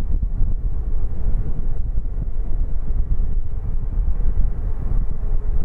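Boeing 737-8 MAX's CFM LEAP-1B jet engines running steadily, a low, noisy rumble with no rise in pitch.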